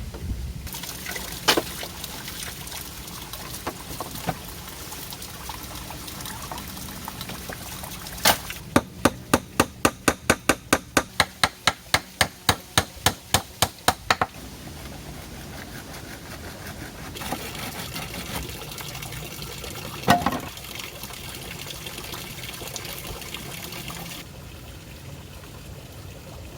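Steady rush of flowing water. Over it, midway, a quick run of about twenty sharp knocks at roughly three a second lasts about six seconds, with a few single knocks before and after.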